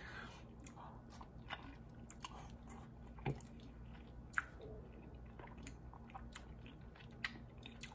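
A person chewing braised chicken feet close to the microphone: faint, irregular mouth clicks and small crunches as teeth work the skin off the little bones, with a couple of sharper clicks about three and four seconds in.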